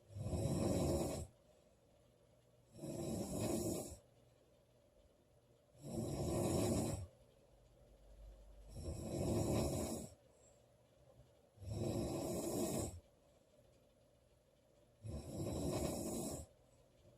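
A woman snoring loudly in a steady rhythm: six snores, each lasting about a second, about one every three seconds, with quiet breathing gaps between them.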